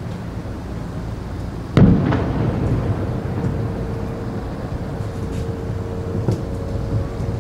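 Aerial firework shell bursting with a single loud boom about two seconds in, heard from a distance, followed by a long rolling rumble and a few fainter pops.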